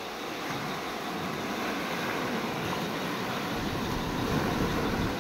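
Surf: small waves breaking and washing over a rocky shore, a steady rush of water that swells slightly near the end. A low rumble joins about three and a half seconds in.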